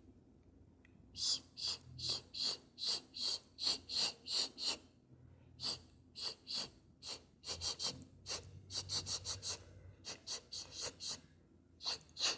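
Vocal imitation of scratching: a whispered, hissing "hhhck" made with the mouth, repeated over and over at about two to three strokes a second, in runs with short pauses, starting about a second in.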